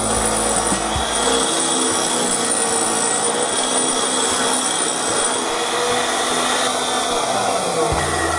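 Wood being cut or abraded by a tool: a continuous, even rasping noise with no breaks.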